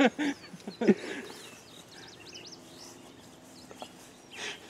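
Songbirds chirping in short, quick, high phrases, fairly faint, after a brief bit of human voice in the first second.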